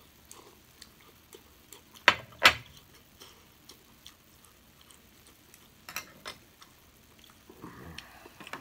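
Small ceramic bowl and chopsticks handled at a table: scattered light clicks, with two sharp knocks about two seconds in as the bowl is set down, and a couple more clicks near the end.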